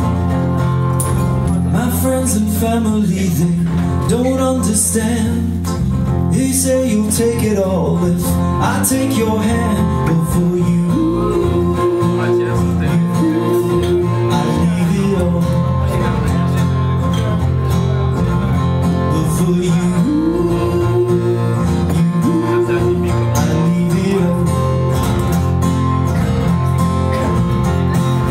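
Live band music: a man singing over a strummed acoustic guitar and an electric bass.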